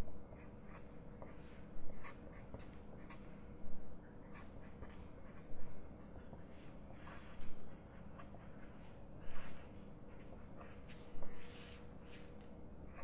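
Felt-tip pen writing on paper in short scratchy strokes, with a louder stroke about every two seconds as an equation is written out. A faint steady hum sits underneath.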